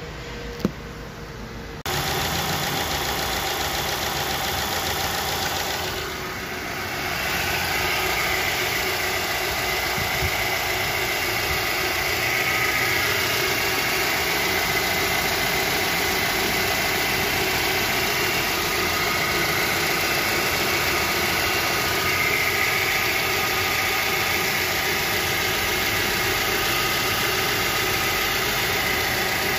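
Nissan Serena C27 engine idling steadily, turning its freshly replaced accessory drive belt and pulleys. The engine sound cuts in abruptly about two seconds in, after a single sharp click.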